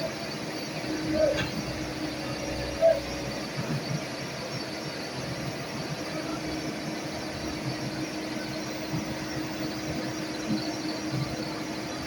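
Excavator running with a steady engine hum and a held whine, with a couple of short squeaks in the first three seconds.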